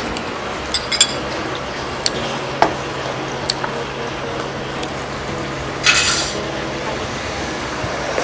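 A fork clinking and scraping against ceramic dishes of tteokbokki and chicken: a few light clicks spread through, and a louder scrape about six seconds in, over a steady low hum.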